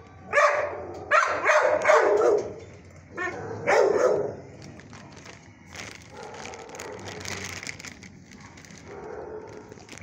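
A dog barking and howling in three loud calls in the first half, the longest falling in pitch as it ends; quieter after.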